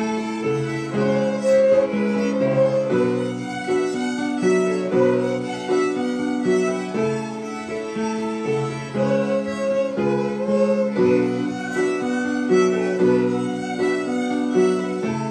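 A small ensemble of violins playing a tune together with bows, in an even rhythm with notes changing about twice a second.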